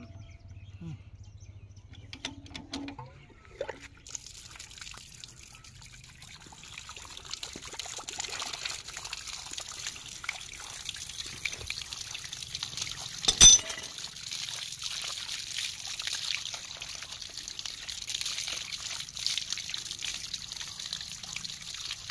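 Water pouring from a PVC pipe outlet through an open ball valve and splashing onto a concrete slab. The steady splashing hiss starts about four seconds in, and a single sharp knock a little past halfway is the loudest sound.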